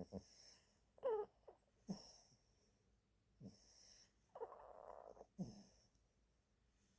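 A pet dog snoring in its sleep: short snorts and breaths at irregular intervals, with one longer rasping snore of about a second in the middle.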